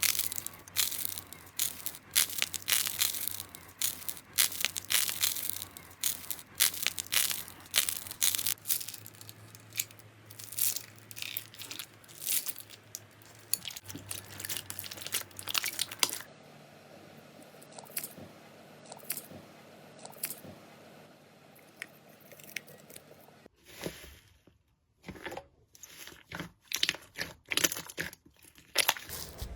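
Slime being squeezed and pressed by hand, with dense crackling and crunching clicks. The crackling eases for a while past the middle, stops briefly, then starts again near the end.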